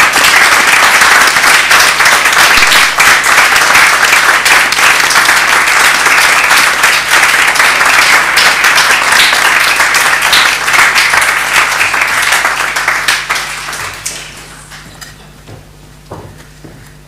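Audience applauding, a dense even clatter of many hands that fades and dies away about fourteen seconds in.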